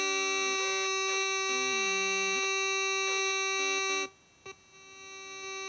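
Square-wave tones from the kit's 555 timer oscillators, picked up through fingertip contact and played through an amplified speaker: a steady buzzing tone with a second tone that glides and steps in pitch. Both cut out about four seconds in, there is a click, and the steady tone fades back in.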